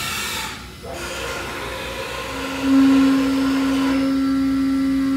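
Haas UMC-750 five-axis CNC mill starting its program dry, without coolant: a short hissing rush in the first second, then the spindle coming up to speed about two and a half seconds in and running with a steady, even whine.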